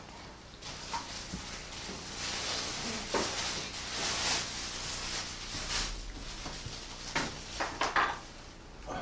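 Rustling and scraping of a performer moving on a wooden stage floor, with a quick run of sharp knocks and clatters near the end.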